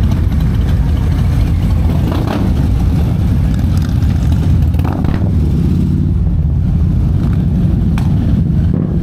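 Engines of many large cruiser motorcycles rumbling at low revs as they roll slowly past in a line, with a few brief knocks or clicks.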